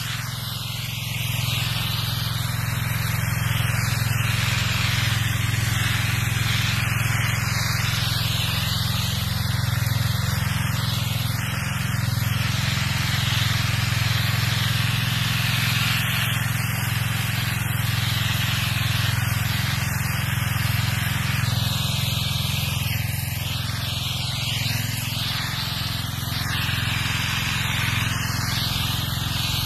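Gas-powered pressure washer engine running steadily at an even pitch, with a constant hiss over it.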